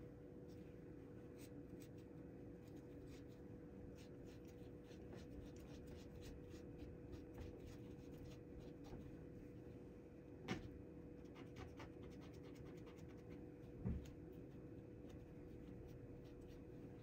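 Faint scratching and rubbing as a carbon-fouled revolver cylinder is worked over after being wetted with carbon remover, with scattered light clicks. A sharper click comes about ten and a half seconds in and a soft knock near fourteen seconds, over a faint steady hum.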